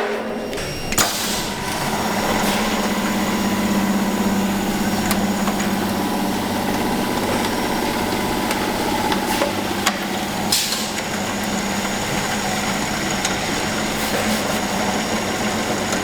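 A machine running steadily with a low hum, with a sharp click about a second in and another near ten and a half seconds.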